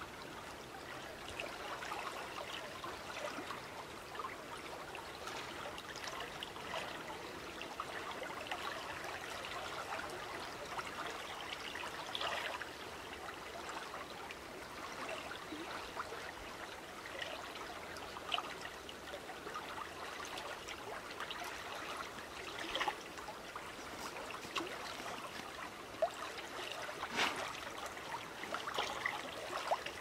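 River current flowing along a grassy bank: a steady watery rush and gurgle, broken now and then by brief small splashes, more of them near the end.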